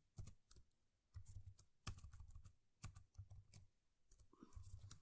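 Faint computer keyboard typing: irregular, separate key clicks.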